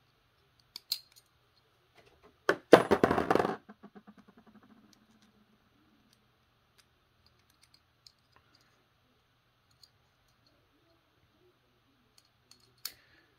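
Small plastic clicks of Beyblade parts being pulled apart and fitted together. About three seconds in, a loud clatter as a ring-shaped part drops into the plastic stadium, followed by a fast rattle that dies away over about two seconds as it wobbles to rest.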